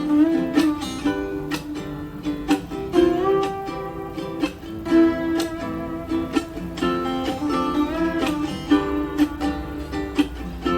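A song played through a SonicGear Pandora Lumo 2 portable speaker: a plucked-string riff over a steady beat with drum hits, with no vocals.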